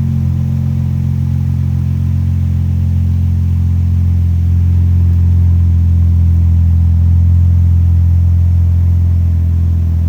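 Engine idling steadily, a low even drone that swells slightly in the middle.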